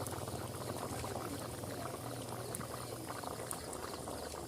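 Chicken curry bubbling steadily in a pot, a dense, even crackle of simmering liquid.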